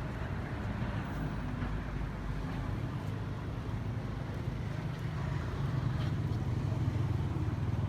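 An engine running steadily, a low hum that grows louder from about five seconds in, over a noisy rush of wind or water.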